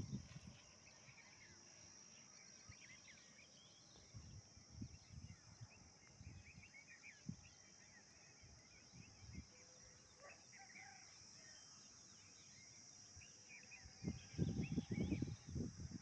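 Rural evening ambience: many small birds chirping over a steady high-pitched drone, with low rumbling thumps on the microphone in the last couple of seconds.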